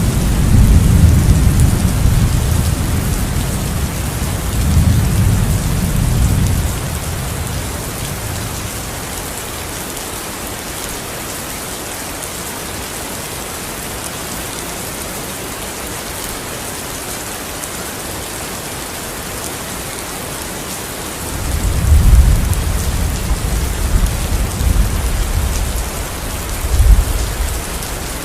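Steady heavy rain hissing, with low rolling thunder that rumbles for the first several seconds, dies away, and builds again about two-thirds of the way through, peaking twice near the end.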